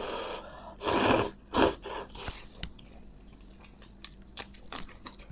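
A person slurping soupy noodles, with two loud slurps in the first two seconds, then chewing with small crisp crunches as he bites into a raw green chili pepper.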